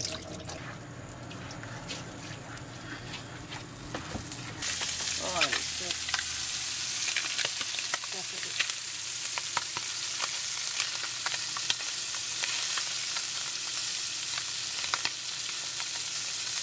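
Scallops frying in a hot non-stick pan: a steady sizzle that starts suddenly about four and a half seconds in, with the clicks and scrapes of a spatula turning them. Before the sizzle there is a quieter stretch of light knocks.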